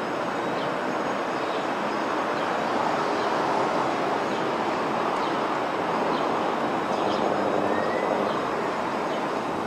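Steady outdoor background noise, the hum of distant traffic, with a few faint short high chirps.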